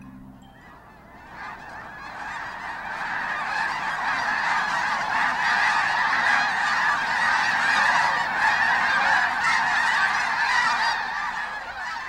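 A large flock of snow geese calling together, a dense chorus of overlapping honks that swells over the first few seconds, stays full through the middle and eases a little near the end.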